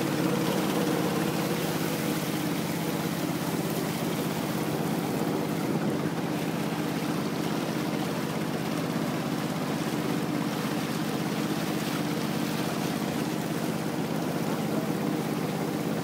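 Small river boat's engine running steadily at an even pitch, heard from aboard, over a constant hiss of water rushing past the hull.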